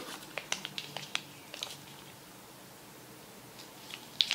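Light clicks and taps of cardboard box parts and plastic-wrapped accessories being handled and lifted out of a phone box: a scatter of small clicks over the first second and a half, a quiet stretch, then a few sharper clicks near the end.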